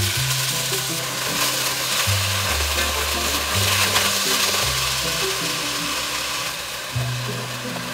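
Cubes of raw beef sizzling as they sear in oil in an enamelled Dutch oven, stirred with a wooden spoon. Background music with a low bass line plays underneath.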